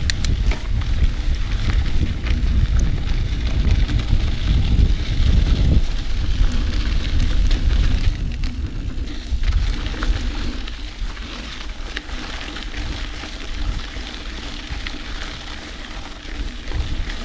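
Mountain bike rolling fast over a dirt trail, with tyre crunch and many small clicks and rattles from the bike, under wind buffeting the camera microphone. The low wind rumble is heaviest for the first six seconds, then eases.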